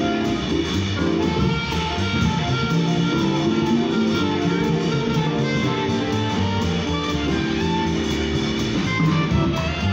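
Live small-band jazz from an upright bass, drum kit, electric keyboard and alto saxophone quartet, with plucked strings to the fore and the music running steadily.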